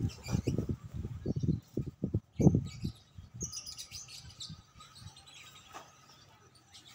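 Small birds chirping in short high calls, thickest about halfway through, over low irregular rumbles in the first three seconds, the loudest about two and a half seconds in.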